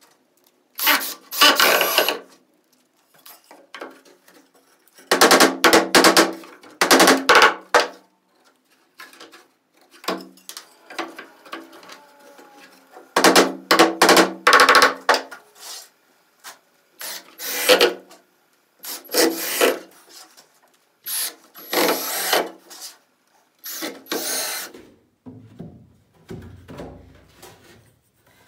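Hand work on wood: scraping, rasping strokes in a series of short bursts, each a second or two long with pauses between. The loudest bursts come about five to eight seconds in and again around thirteen to fifteen seconds in.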